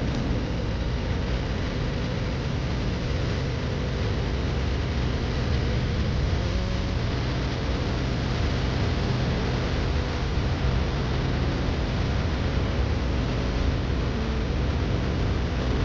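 Vintage tractor engine running steadily, with a broad hiss over it.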